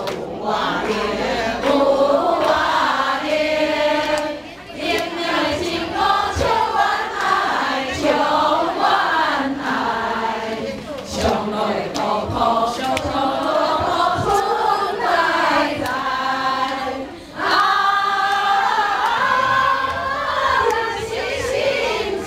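A group of women singing a song together from song sheets, the phrases running on with two brief breaks.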